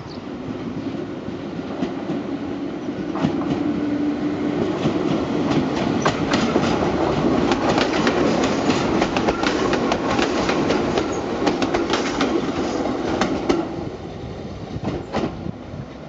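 Toyama Chihō Railway 17480-series electric train (ex-Tokyu 8590 series) running past close by, its wheels clicking over the rail joints. It grows louder to a peak in the middle, with the clicks coming thick and fast, then fades as the train moves away.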